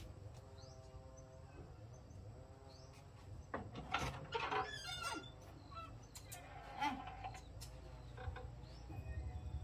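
Chickens clucking, with small birds chirping briefly and repeatedly. A louder run of clucks and a few knocks come about halfway through.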